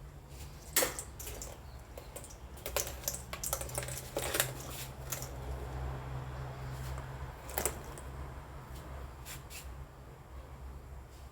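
Scattered sharp clicks and light knocks, irregular and a few seconds apart, over a steady low hum.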